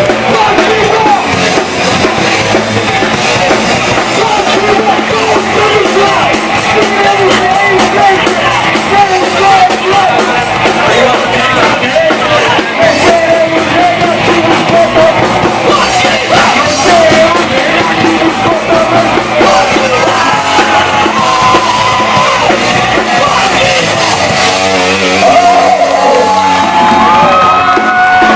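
Old-school punk band playing live: loud rock instruments with shouted, yelled singing.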